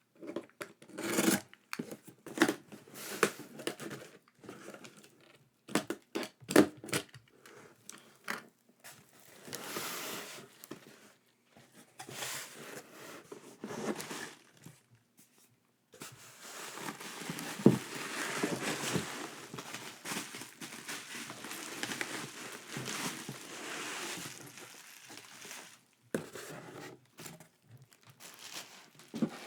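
Packaging being opened by hand: scattered short rustles and taps, then about ten seconds of continuous crinkling and tearing of wrapping, with one sharp tap partway through.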